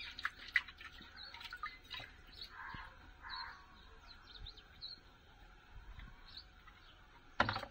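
Quiet scene: faint, scattered bird chirps, with soft splashing and rubbing from a clear bowl being washed by hand in a plastic tub of water, and a few light clicks near the start.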